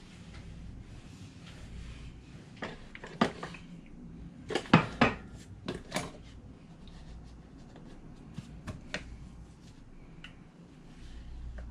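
Kitchen utensils being handled on a countertop: a series of sharp knocks and clinks, loudest in a cluster about halfway through, then a few lighter taps. A wooden rolling pin is set down, and a plastic bowl and knife are picked up to cut pie dough.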